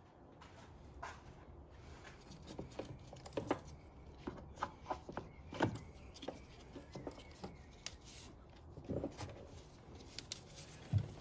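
Faint, scattered light clicks and knocks of gloved hands handling a car battery and the plastic parts around it in its compartment.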